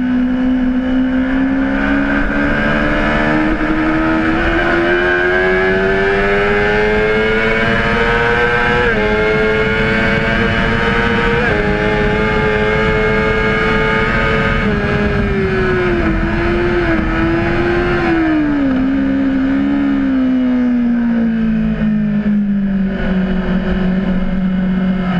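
Honda CBR600RR inline-four engine running hard: its pitch climbs under acceleration with two quick drops at upshifts, holds, then falls in steps through downshifts as the bike slows.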